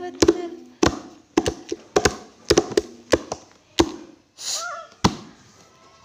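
A toddler's hands slapping a wooden tabletop: about a dozen sharp knocks at an uneven pace that stop about five seconds in, with a brief voice sound shortly before the last knock.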